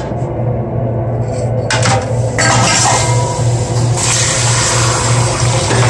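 A few metal clinks, then from about two and a half seconds in a steady hiss of water as the hot gold wedge is cooled off, over a constant low hum.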